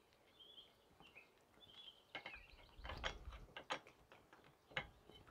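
A few faint metallic clicks and knocks from a tie rod end remover, used as a puller, being worked on the wiper arm's pivot stud as the wiper arm comes loose.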